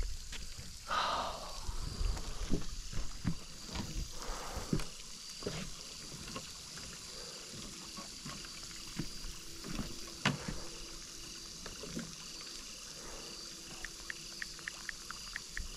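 Footsteps and scuffing through grass and onto wooden dock boards: irregular knocks and thumps. Near the end comes a run of quick, even clicks, about five a second.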